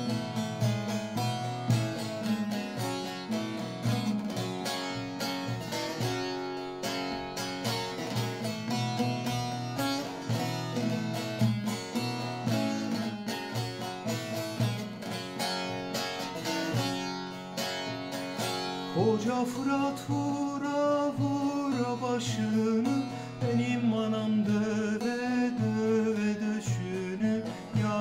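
Bağlama (long-necked Turkish saz) strummed quickly in a folk tune. About two-thirds of the way in, a man's voice starts singing along.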